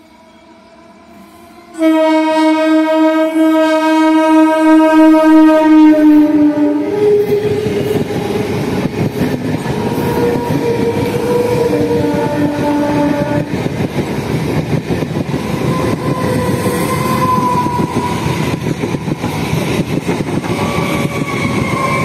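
An electric multiple-unit local train sounds a loud horn blast of about five seconds, beginning about two seconds in. Shorter horn notes follow, and the train then runs past close by with a steady rush of wheels on rail and a clatter over the rail joints.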